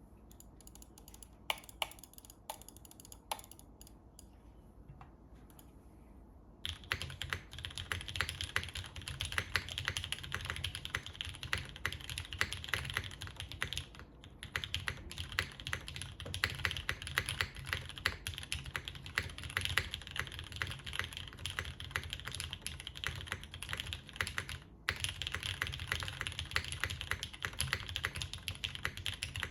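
Typing on a tenkeyless mechanical keyboard with Gateron Ink linear switches in an aluminium plate and GMK keycaps. A few separate keystrokes at first, then continuous rapid typing from about seven seconds in, with one brief break late on.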